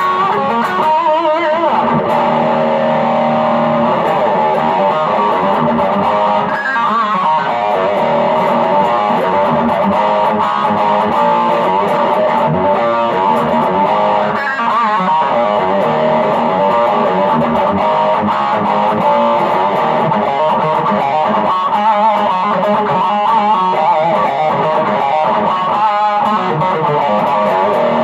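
M-Musi Virgo Fusion electric guitar on its humbucker through stacked overdrive pedals at high gain, playing sustained lead lines with bends and vibrato.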